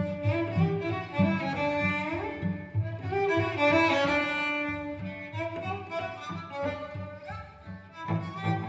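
Two cellos playing together, a live cello with a prerecorded second cello part, in quick bowed notes that shift in pitch, growing softer near the end.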